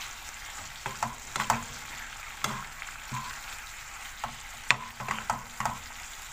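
Chicken pieces sizzling in sauce in a nonstick frying pan, stirred with a wooden spatula. Under the steady sizzle, the spatula scrapes and knocks against the pan at irregular moments.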